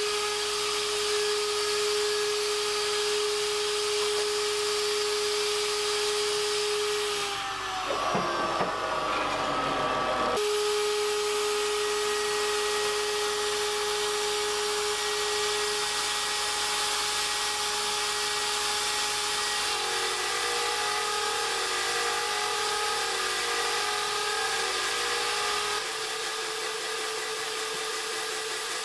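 CNC router spindle (Mafell FM 1000 router) spinning a 6 mm two-flute end mill at about 25,000 rpm and cutting 5083 aluminium, a steady high whine over the hiss of the cut. Briefly, about a third of the way in, the pitch sweeps down and comes back. Later the whine wavers up and down as the load on the cutter changes.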